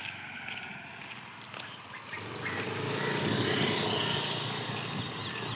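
A motor vehicle passing on the road, growing louder from about two seconds in and easing off slightly near the end.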